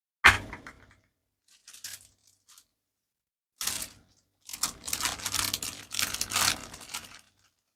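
Plastic wrapping of a pack of mini balloons being torn open and crinkled. It starts with one sharp, loud crack, followed by a few faint crinkles and then a long stretch of crackling rustle in the second half.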